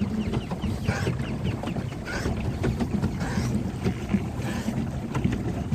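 Water churning and splashing around a small paddle boat as it turns in choppy water, with a steady low rumble full of small splashes and some wind on the microphone.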